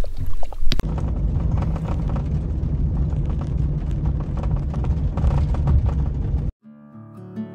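Camper van driving along a rough mountain road, heard from inside the cab: a steady low rumble of engine and tyres with frequent short knocks. A dog lapping water splashes briefly at the very start, and the rumble cuts off abruptly near the end as strummed acoustic guitar music begins.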